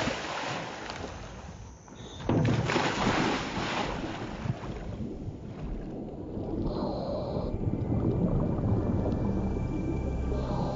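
Scuba diver breathing underwater through a regulator: two bursts of rushing exhaled bubbles, each about a second and a half long, then quieter water noise. Low sustained music tones come in over the last few seconds.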